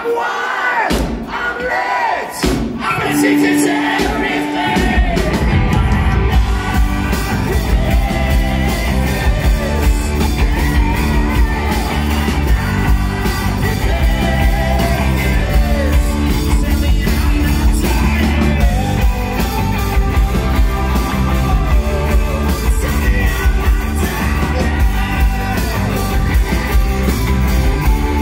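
Live rock band playing in a theatre. The first few seconds are shouting voices and sharp hits with a held note. From about five seconds in, drums, bass, electric guitars and a singer come in together and play loudly to the end.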